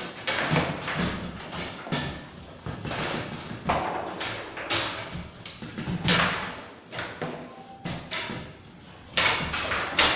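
Table-football match in play: irregular sharp knocks and thuds of the ball being struck by the rod figures and bouncing off the table walls, with rods clacking, about one or two knocks a second. A quieter lull gives way to a quick burst of loud knocks about nine seconds in.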